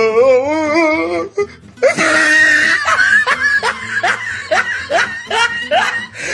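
Background music with a vocal: a wavering held note, then a run of quick, repeated rising vocal notes that sound like laughter.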